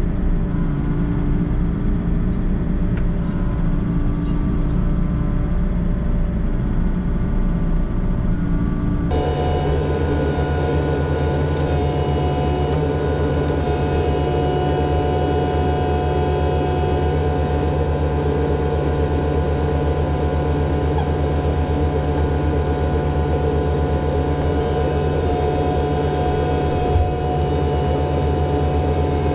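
Volvo excavator's diesel engine and hydraulics running steadily with a constant hum, heard from inside the operator's cab while the boom handles curbstones. The tone of the running changes abruptly about nine seconds in.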